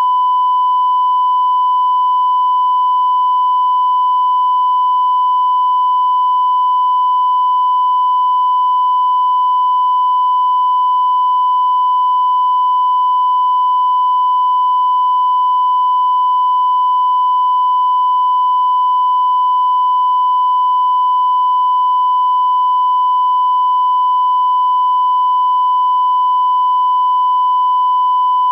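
A single steady mid-range sine test tone, held at one pitch without any change or break, with a faint higher overtone above it; part of a mid-frequency speaker diagnostic test.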